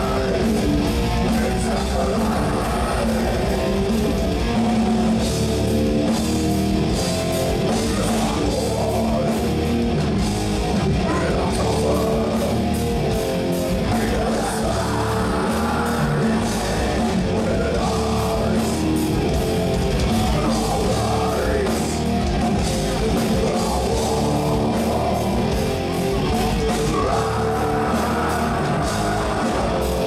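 Rock band playing live, with electric guitars, bass and a drum kit under a singer's vocals.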